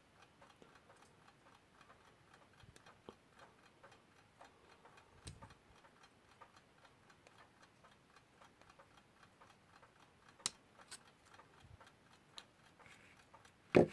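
Westclox Lark mechanical alarm clock movement ticking softly and evenly, with a few sharper clicks between the ticks. The beat is slightly off and is being corrected by moving the hairspring collar.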